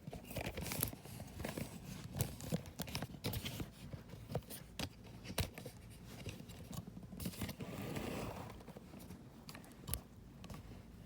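Handling noise as the camera is moved and set in place: irregular clicks, scrapes and rustling, with a longer stretch of rubbing about eight seconds in.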